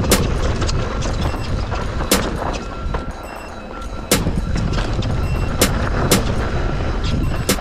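Downhill mountain bike descending a rough trail at speed: a steady low rumble with sharp clattering knocks from the bike over bumps, several times a second at irregular intervals. The rumble drops off briefly about three seconds in and ends in a hard knock just after four seconds.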